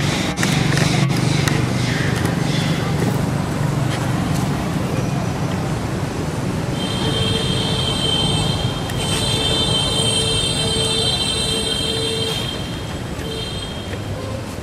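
Outdoor background noise with a steady rumble like passing road traffic and faint voices. From about seven seconds in, a steady high-pitched whine runs for several seconds, breaks briefly, and returns once more near the end.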